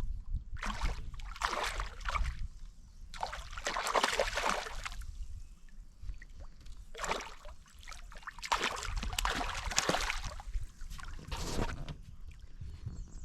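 Water splashing and sloshing in about six irregular bursts, some short and some lasting over a second, over a steady low rumble.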